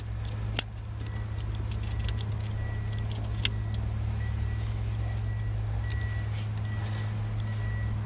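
The trim ring around a Toyota Camry's ignition lock cylinder being worked off by hand: a sharp click about half a second in and a fainter one a few seconds later as its tabs are spread, over a steady low hum.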